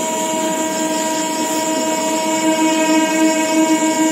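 Horn of an approaching train, one long unbroken blast with several notes sounding together.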